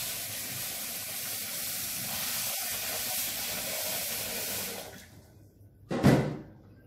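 Kitchen tap running into a metal pot in a stainless sink, a steady hiss of water that stops about five seconds in. About a second later, a short loud knock.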